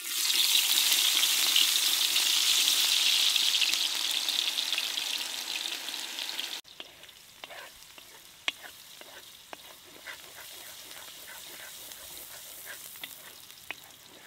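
Chopped onions hitting hot oil in a large metal kadai: a loud sizzle that slowly eases and then breaks off abruptly about six and a half seconds in. After that a quieter sizzle, with a wooden spatula stirring and scraping the onions around the pan in scattered light knocks.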